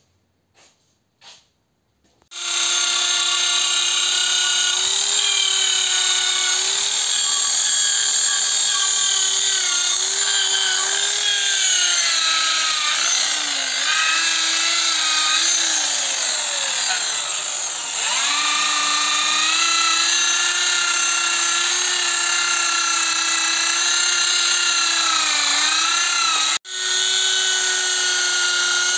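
Corded electric drill spinning a wire wheel against a Land Rover Series 2A axle casing to strip it to bare metal. The motor whine starts a couple of seconds in and dips in pitch each time the brush is pressed onto the metal, cutting out for an instant near the end before running on.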